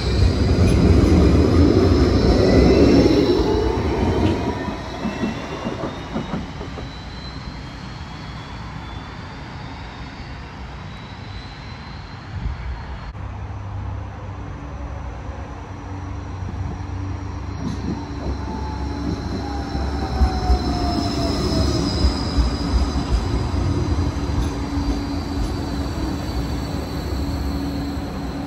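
Gold Coast G:Link light-rail trams. One pulls away with a rising electric motor whine and rail noise that fades over the first few seconds. About two-thirds of the way in, another tram comes in to the stop with a falling whine as it slows, and a steady low hum lasts to the end.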